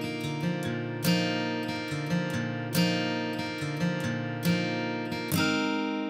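Background music: acoustic guitar playing, its notes ringing on, with a fresh chord struck every second or two.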